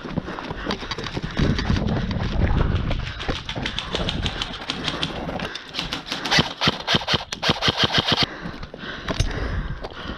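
Airsoft guns firing in rapid bursts, a quick run of sharp clicks at roughly ten a second that is thickest in the middle and later part, over low rumble.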